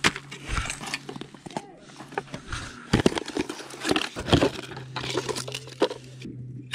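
Cardboard box of a Coleman Peak 1 camp stove being pulled open and handled: rustling cardboard and packaging with scattered clicks and knocks as the stove is taken out.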